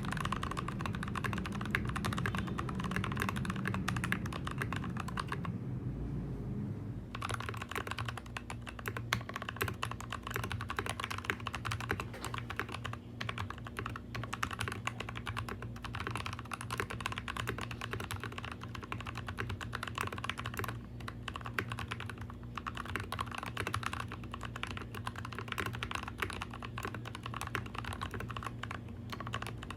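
Continuous fast typing on an NK65 Entry Edition custom mechanical keyboard, a dense run of irregular key clacks, with a short pause about six seconds in.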